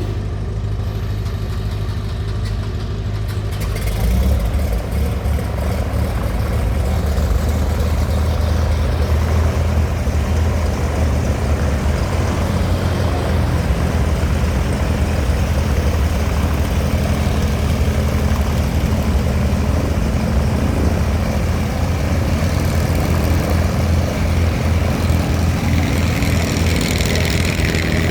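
Cessna 180A's six-cylinder piston engine and propeller running at low power, getting louder and fuller about four seconds in, then running steadily.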